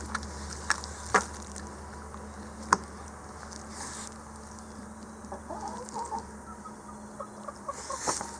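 Shiba Inu eating raw brown bear meat, with a few sharp snaps of biting and chewing in the first three seconds, the loudest near the three-second mark. From about the middle on, a run of short, pitched, clucking-like calls is heard.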